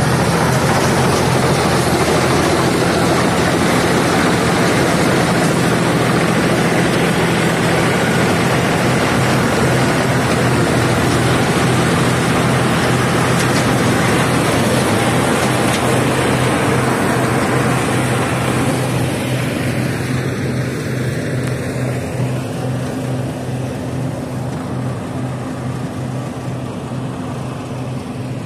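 A 50 HP tractor's engine runs steadily under load, driving a tractor-mounted mini combine harvester as it cuts and threshes paddy. A steady engine hum sits under the dense noise of the cutter and threshing mechanism. The sound grows gradually fainter over the last third as the machine moves off.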